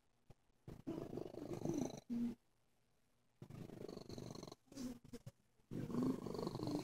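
Gray-and-white domestic cat purring close up in three bouts broken by short pauses, a purr that sounds sick.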